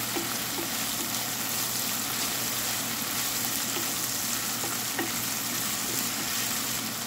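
Sliced onions sizzling in hot ghee in a stainless steel pot, stirred with a wooden spatula that gives a few light knocks against the pot.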